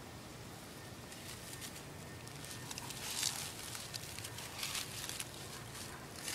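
Rustling and crackling through leafy ground cover and dry fallen leaves, in short irregular bursts that start about halfway through.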